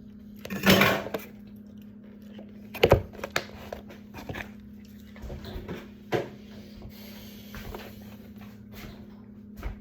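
A few scattered knocks and clunks of dishes and containers being handled, the loudest about three seconds in, with a brief rustle near the start. A steady low hum runs underneath.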